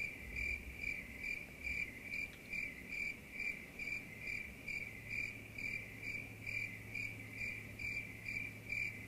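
Crickets chirping: a sound effect for an awkward silence, a high-pitched chirp repeating steadily about twice a second, starting and stopping abruptly.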